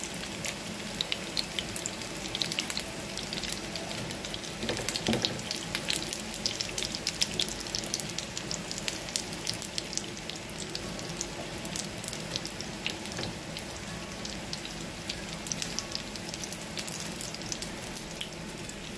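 Breaded chicken nuggets shallow-frying in hot oil in a pan, sizzling steadily with many small crackles.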